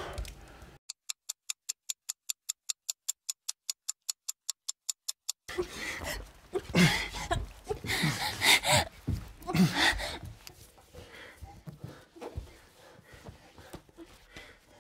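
A rapid run of evenly spaced thin ticks, about five a second, for several seconds, then heavy panting and gasping breaths with strained grunts from people struggling on the floor.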